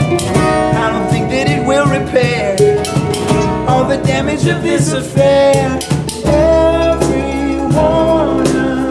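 Acoustic string band playing a song: fiddle, acoustic guitar, mandolin and upright bass together.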